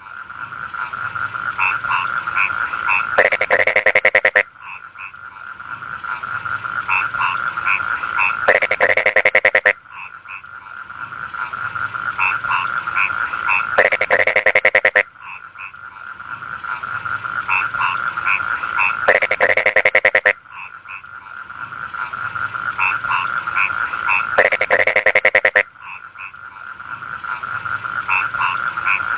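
Rice-field frogs croaking in a steady chorus. A rapid pulsed call swells over several seconds to a dense, loud burst, then drops and starts again, about every five seconds.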